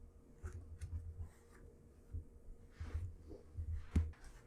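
Faint handling noise: soft low bumps and a few light clicks, with one sharper click about four seconds in.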